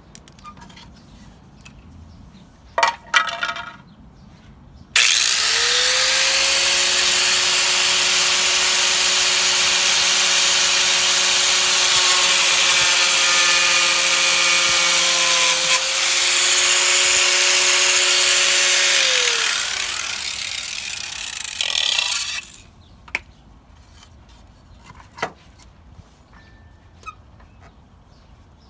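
Corded angle grinder with a sanding disc grinding the edge of a bolt-on over-fender: it starts up about five seconds in, runs steadily for about fifteen seconds, then winds down. A few knocks from handling come before and after.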